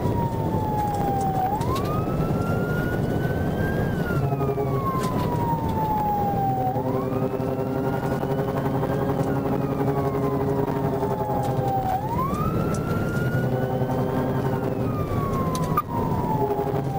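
Police patrol car siren on a slow wail, gliding up and then down in about three cycles of roughly five seconds each. It is heard from inside the cruiser over steady engine and road noise at highway speed.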